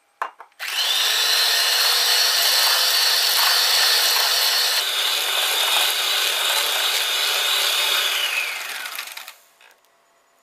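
Electric hand mixer running at high speed, its beaters churning butter and egg in a stainless steel bowl. It starts with a click about half a second in, runs with a steady whine for about eight seconds, then winds down with falling pitch and stops near the end.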